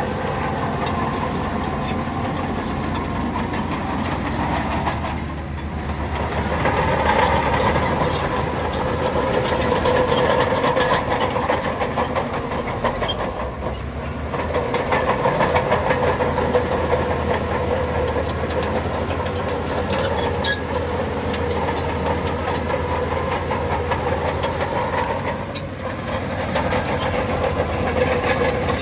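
Diesel engine of a Shantui crawler bulldozer running under load, its whine rising and easing several times, with a light metallic clatter of the tracks.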